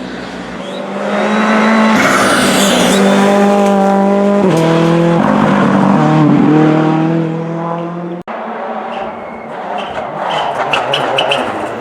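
Rally car engine at high revs, its pitch stepping at gear changes about four and five seconds in, then fading. After an abrupt cut comes a noisier passage with rapid sharp cracks near the end.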